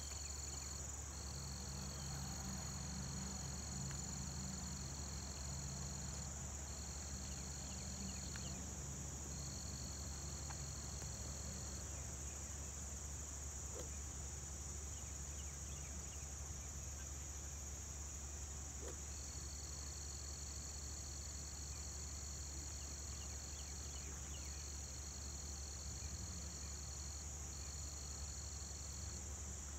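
Insect chorus of crickets trilling steadily. A high, even trill stops and restarts several times over a continuous higher buzz.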